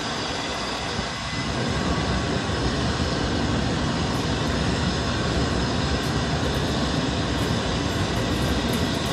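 LNER A3 steam locomotive Flying Scotsman letting off a steady hiss of steam from low at its front, getting louder about a second and a half in.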